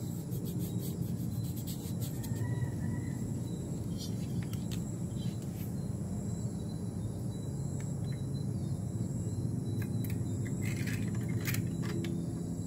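Scattered light metallic clicks of a hand tool working the cylinder-head nuts of a Yamaha RX two-stroke engine, in two clusters about a third of the way in and near the end. Under them run a steady low hum and a steady high insect chirring.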